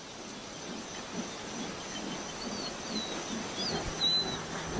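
Open-country ambience: a few short, high bird chirps, mostly in the second half, over a thin steady high insect drone and faint low rustle.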